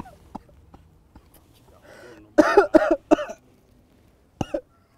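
A man coughing on cigarette smoke: a quick run of three hard coughs about halfway through, and one more short cough near the end.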